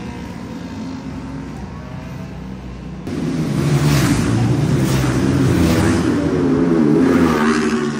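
Racing motorcycles' engines running at high revs, several bikes at once. Louder from about three seconds in, and loudest over the last few seconds.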